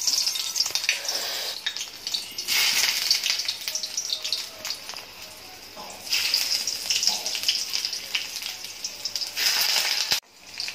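Hot oil in a steel wok sizzling as green vegetables fry in it. The hiss surges louder about two and a half seconds in, and again about six seconds in as more pieces are dropped into the oil. It drops off sharply near the end.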